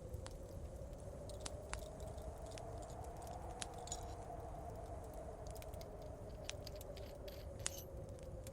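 Fireplace crackling: scattered sharp pops and snaps over a steady low rumble. A faint wind howl swells and eases underneath.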